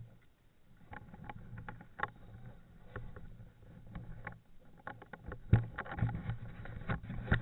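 Footsteps roughly twice a second, with knocks and rustling of clothing and gear.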